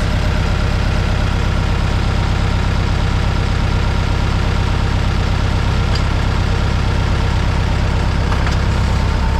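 Engine of a Ditch Witch JT20 horizontal directional drill running steadily, with a couple of faint clicks from the machine near the end.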